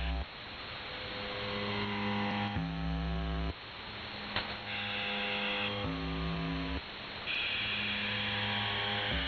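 Shortwave radio receiver tuned to UVB-76 on 4625 kHz, giving the station's strange white noise. A steady hiss runs throughout. A low buzzing hum switches on for about a second, twice, and comes back near the end, and the hiss swells gradually between the switches.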